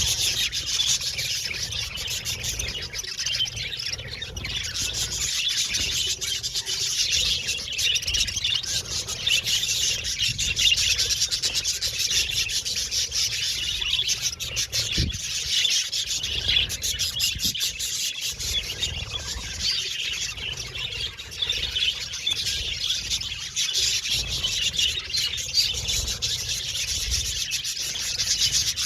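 A flock of budgerigars chirping and warbling together nonstop, a dense, busy chatter of many birds at once.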